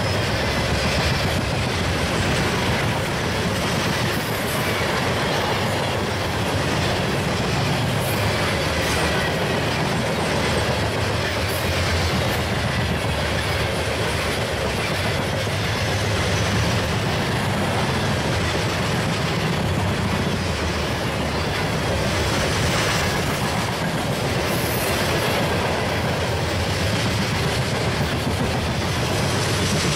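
Norfolk Southern freight train of steel open-top hopper cars rolling past close by: a steady noise of steel wheels running on the rails that holds level throughout.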